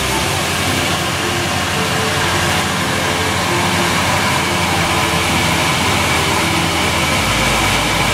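Chopped garlic frying in hot peanut oil in a pan: a steady, even sizzle that does not let up.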